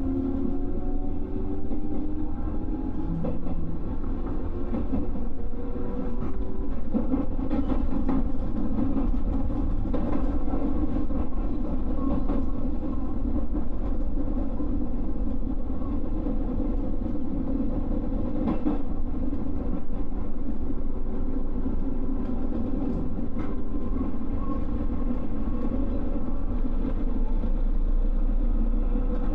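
JR West 221 series electric train running, with a steady rumble of wheels on rail. Motor and gear tones rise in pitch over the first few seconds and again near the end as it speeds up, and a few sharp clicks cut through.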